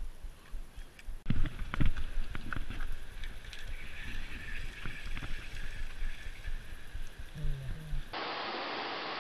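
Wind buffeting the microphone, with knocks and clicks from handling a spinning rod and reel, over running river water. About eight seconds in it cuts to a steady rush of water below the dam.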